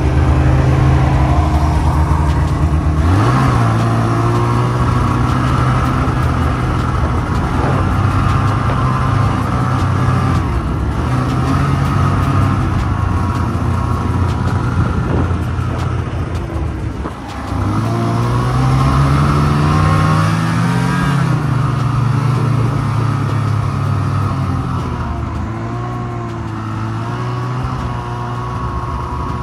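Ski-Doo 600 cc snowmobile engine running under way. Its pitch climbs sharply about three seconds in, dips briefly, then rises and falls again around eighteen to twenty-one seconds in as the throttle is worked, before settling lower near the end.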